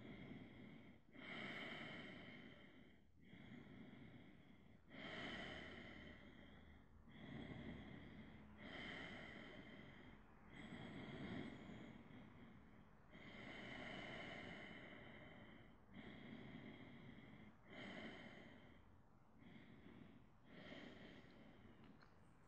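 A person's slow, faint breathing while holding a seated forward bend in yoga: a steady run of soft in- and out-breaths, each lasting a couple of seconds.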